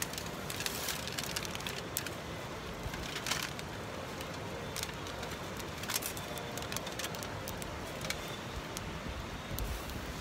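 Wood campfire crackling, with scattered sharp pops and snaps over a steady low hiss.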